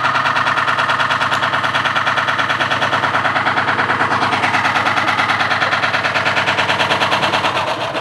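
Front-loading washing machine running flat out, its spinning drum making a loud, rapid, even hammering rattle over the hum of the motor. The rattle begins to die away near the end as the machine winds down.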